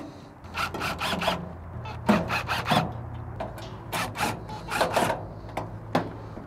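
Cordless drill backing out the screws of a pellet grill's hopper bottom plate. The motor hums steadily, rising slightly in pitch about two seconds in, with repeated short scraping rasps from the bit and screws in the sheet metal.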